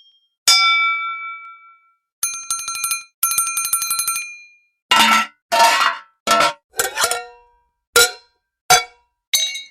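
A succession of metal sound effects. First comes a single ringing strike that dies away, then two rapid rattling, bell-like trills that each ring on for about a second. After that come about eight short, sharp metallic clanks in quick succession.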